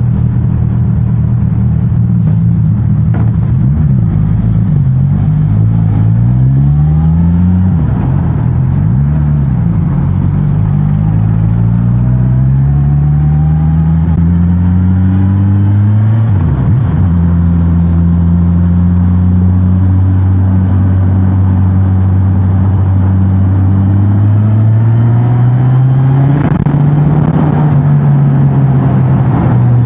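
Suzuki GSX-S1000GT's inline-four engine through its stock exhaust while riding. The revs climb and drop back several times as it pulls through the gears, hold steady for a while in the middle, then rise again and ease off near the end.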